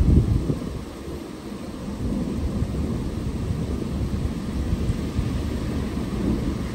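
Thunder rumbling during steady rain: the rumble is loudest at the start, eases about a second in, then keeps rolling low under the hiss of the rain.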